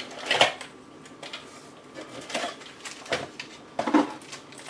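A gauge and its small box and packaging being handled by hand: a few scattered knocks, clicks and rustles. The loudest comes about half a second in, and others follow at irregular intervals.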